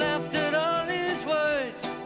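Live folk-rock band playing: sung vocals over strummed acoustic guitars, accordion and bass.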